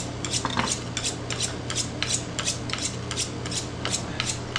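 A dull knife being sharpened with quick, even scraping strokes, about four to five a second, over a steady low hum.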